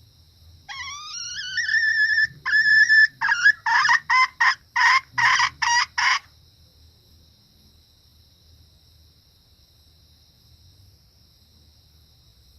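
A female junglefowl (hen) calling: a drawn-out rising note, a shorter held note, then a quick run of about nine sharp clucks that stops about six seconds in. Insects shrill steadily in the background.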